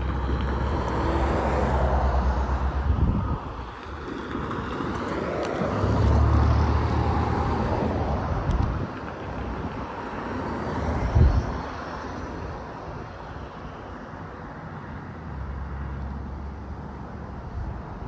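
Freight cars of a CSX mixed freight train rolling past: a steady rumble of wheels on rail that swells and fades several times, with one sharp bang about eleven seconds in.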